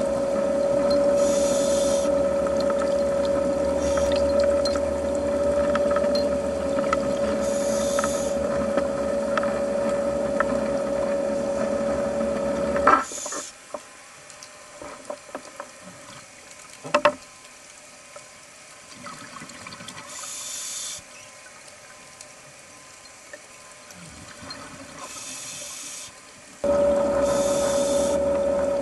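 Underwater ambience from a diver's camera: a steady mechanical hum over a low rumble, with a short hiss of exhaled bubbles every several seconds. The hum cuts off suddenly about halfway through, leaving a quieter stretch with a couple of sharp clicks, and comes back near the end.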